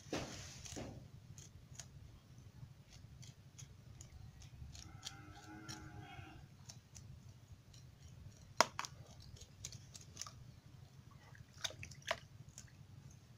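A hilsa fish being cleaned in a plastic basin of water, its scales rubbed and scraped off by hand: irregular scratchy clicks and light water sloshing, with one sharper click a little past the middle.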